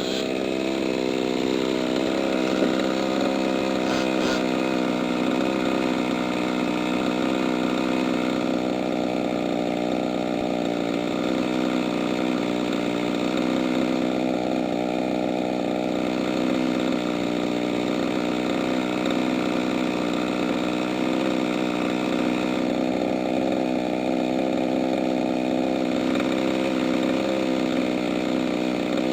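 Small two-stroke engine of a gas-powered large-scale RC car idling steadily at an even pitch.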